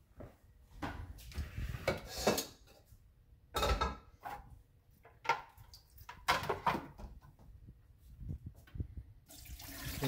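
Plastic parts of a small water fountain knocking and rattling as they are handled at a stainless-steel sink. Near the end, the fountain's old water starts pouring out of its bowl into the sink in a steady rush.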